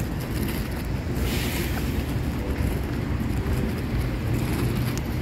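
Steady low rumble with a hiss over it, like wind buffeting the microphone, and a brief brighter gust about a second in.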